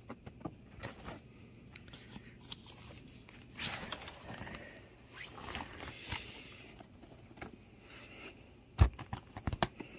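Quiet rustling and scraping with scattered small taps as a cat paws at a hanging jacket and a chair leg; a single sharp knock near the end is the loudest sound.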